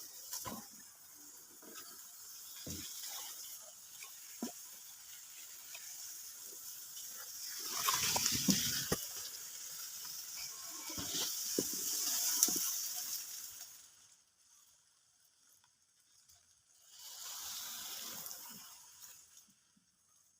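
Water splashing and running off in several bursts, with a few light knocks, as a fish trap is hauled out of the water.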